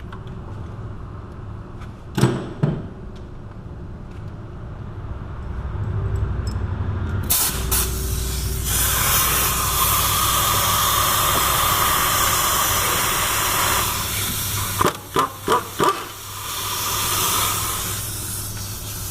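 Two knocks about two seconds in, then a pneumatic ratchet running out the hub-assembly bolts. A low buzz grows into a long, loud hiss of exhaust air, followed by four short trigger blips and a second run of hiss near the end.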